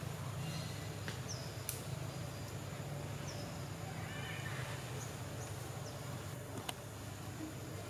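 Forest ambience: a steady low hum under short, high chirps that recur every second or two, with a few sharp clicks.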